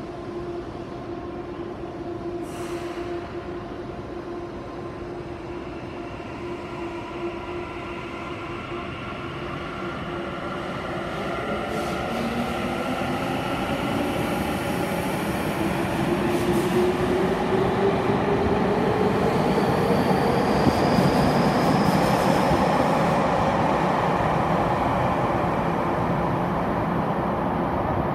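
Tokyu 5080-series electric train pulling out of an underground station. A steady hum while it stands and a short hiss about two and a half seconds in give way to the motors' whine climbing in pitch as it accelerates. The running noise of the cars grows louder as they pass.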